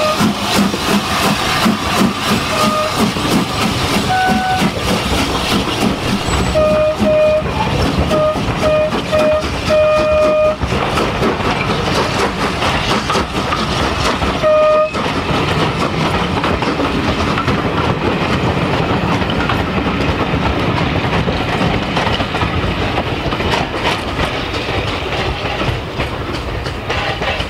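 Urie S15 4-6-0 steam locomotive chuffing past close by, its exhaust beats coming fast, followed by its coaches rolling by with a clatter over the rail joints. In the middle come a string of short tooting notes of one pitch, and one more about halfway through.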